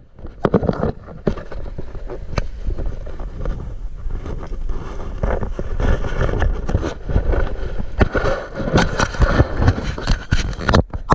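Rustling, bumping handling noise close to a body-worn camera, coming in uneven knocks, over a constant low rumble.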